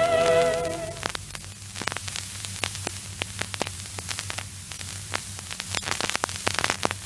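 Surface noise of an old acetate disc under the stylus: steady hiss and low hum with frequent crackles and clicks. A held, wavering sung note from the closing opera music ends about a second in.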